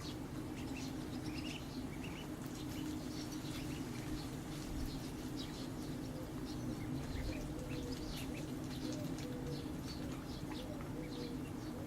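Ducklings peeping: many short, high chirps over a steady low hum.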